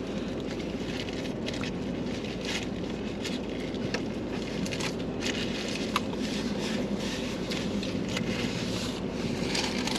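Steady low rumble with scattered small crackles and rustles of food wrappers being handled during eating.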